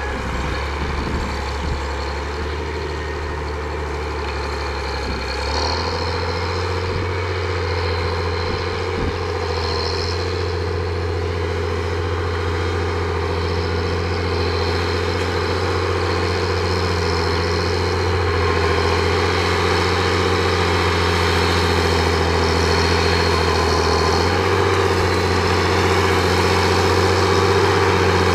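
HSM 904 forestry skidder's 150 hp 6.7-litre diesel engine running under working load. Its note shifts about five seconds in and again near the end, and it grows gradually louder as the machine comes closer.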